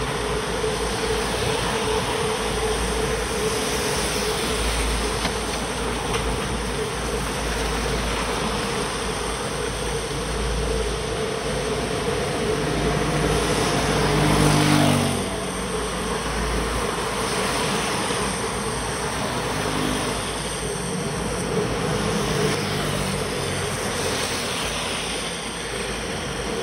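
Riding noise from a bicycle on a wet road: steady wind rumble on the microphone and the hiss of tyres on wet asphalt. A motor vehicle's engine passes close by about halfway through, the loudest moment, and a fainter one a few seconds later.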